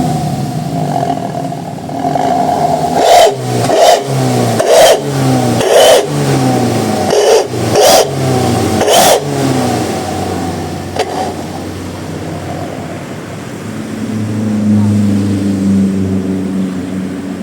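Motorcycle engine breathing through an aftermarket SUOS exhaust, with the deep growl ("ngorok") the exhaust was fitted for. The throttle is blipped about seven times in quick succession, each rev falling away. The engine then settles back to a lower idle with a brief swell near the end.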